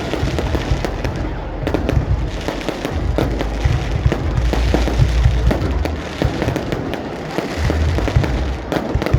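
Aerial fireworks going off: a dense run of bangs and crackles over deep booms.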